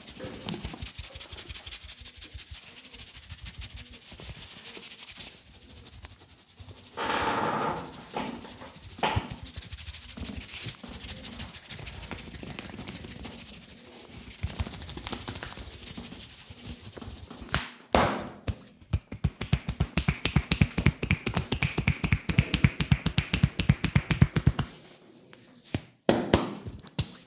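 Hands massaging a man's head: fingers rubbing and working through the hair and over the scalp with a steady patter of small clicks. About two-thirds of the way in, the hands switch to a run of fast, even, rhythmic taps on the head lasting several seconds, the loudest sound present.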